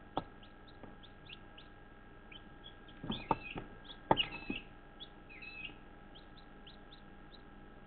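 Newly hatched chicks peeping: a string of short, falling chirps, with a cluster of sharp knocks about three and four seconds in that are the loudest sounds.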